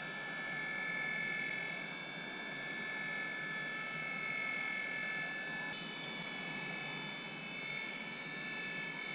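Hot air rework gun blowing steadily: a continuous rush of air with a high whine from its fan motor, heating the factory compound around a laptop graphics chip.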